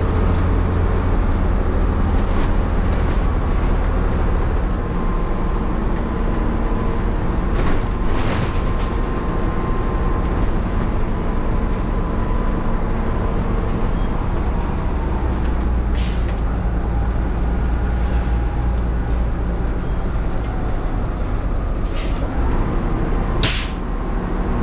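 Leyland Leopard bus's 11.1-litre Leyland 680 diesel engine running on the road, its note easing about five seconds in and building again around fourteen seconds. A few short sharp hisses cut in over it.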